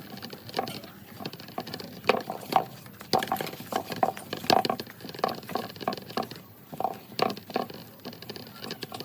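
Irregular light crackles and taps, several a second, from hands working dry coconut husk fibre and straw.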